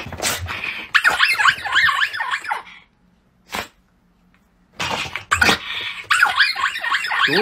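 Small long-haired dog giving rapid, high-pitched, quavering growl-yaps in two bouts, with a few short sharp bursts between them.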